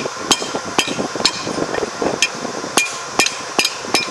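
Hammer blows on steel, about eight sharp ringing strikes at uneven intervals, straightening a bent combine tine that was damaged by hitting concrete.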